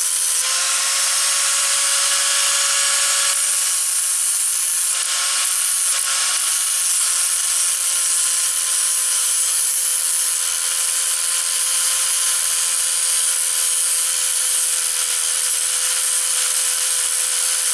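Angle grinder running steadily under load, grinding metal: a continuous whine with a harsh high hiss.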